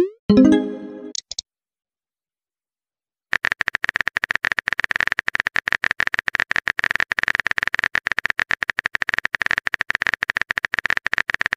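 A texting-app sound effect: a quick rising swoosh and a short chiming tone as a message pops up. After a pause of about two seconds, rapid keyboard-typing clicks run on steadily.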